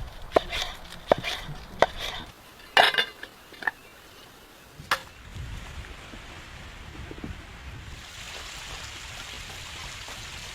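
Several sharp clicks and knocks in the first five seconds, then a steady rush of wind that grows a little louder near the end.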